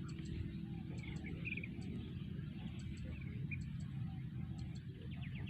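Open-air ambience: a steady low rumble with a few faint short bird chirps about a second in and again near the middle, and a quick rapid trill near the end.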